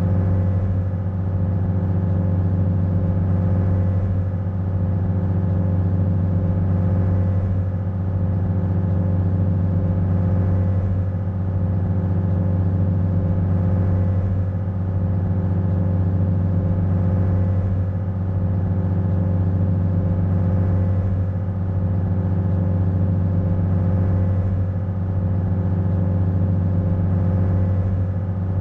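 Cable ferry's engine running steadily under way, a loud low drone with a slight swell about every three to four seconds.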